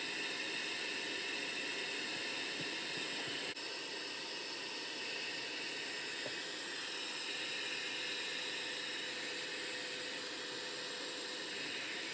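Steady airy hiss of a handheld hot-air blower running while it melts frost loose from an RV refrigerator's freezer, with a brief dip about three and a half seconds in.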